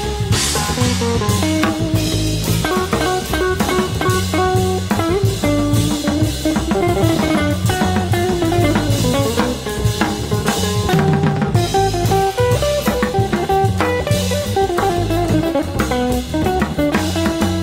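Small jazz group recording: guitar playing moving single-note lines over plucked double bass and a drum kit with cymbals.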